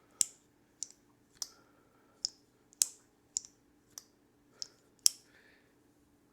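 Blade of a Cooper Cutlery Dollar Knife Co. jack (a traditional slipjoint pocketknife) being worked open and shut, clicking sharply against the backspring about nine times, roughly once every half second or so. The blade is being cycled to work thin knife flush through the freshly flushed pivot.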